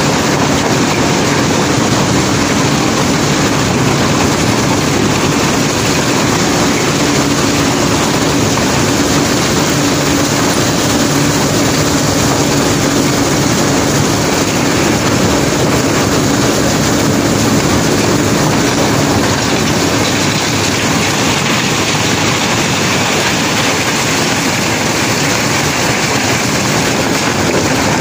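Steady loud rumbling clatter of river cobbles and gravel sliding out of a boat's cargo hold as it is unloaded, over a steady low machine drone that fades out about two-thirds of the way through.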